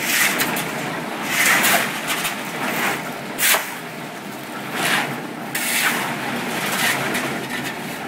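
Portable drum concrete mixer running steadily, with louder scraping rushes coming and going on top of it, and a sharp knock about three and a half seconds in.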